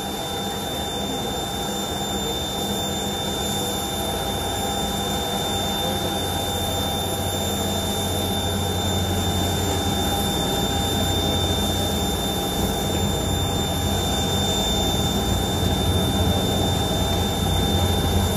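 Steady roar of jet engines heard from inside an aircraft cabin, with a thin steady high whine above it. It grows slowly louder, and the deep rumble strengthens about halfway through.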